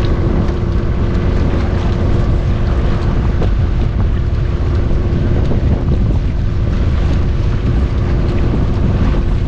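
Boat under way: a steady engine drone beneath heavy wind buffeting on the microphone.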